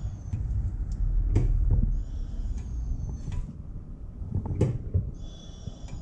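Brake bleeding on a 2013 Mazdaspeed3 with the brake pedal being pumped: a short high squeak and a sharp knock, repeating about every three seconds in time with the pedal strokes.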